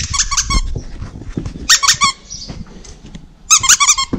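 Squeaker in a plush dog toy, squeezed by hand in three quick bursts of four or five sharp, high squeaks each.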